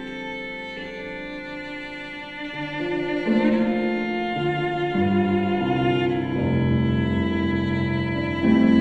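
Cello playing slow, sustained bowed notes. It starts quiet, grows louder about three seconds in, moves down to deeper notes, and swells loudly near the end.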